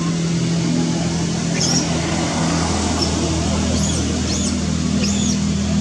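A steady low engine-like hum under a constant hiss, its pitch stepping up slightly about halfway through, with several short high chirps from about two seconds in.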